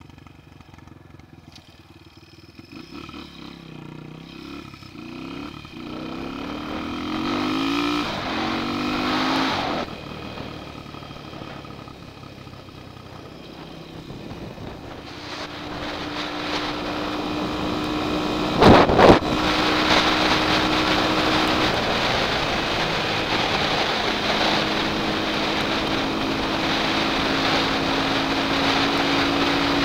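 A car passing close by, growing louder and then falling away suddenly. Then a Honda XR200R dirt bike's single-cylinder four-stroke engine runs steadily as the bike gets under way, with a brief loud burst about two-thirds of the way through.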